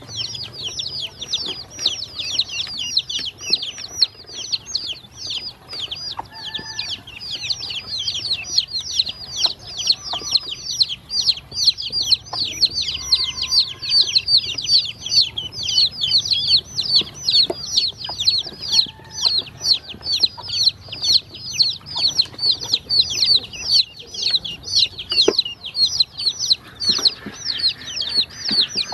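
A flock of baby chicks and ducklings peeping constantly, a dense chorus of high, quick, falling peeps with occasional faint taps underneath.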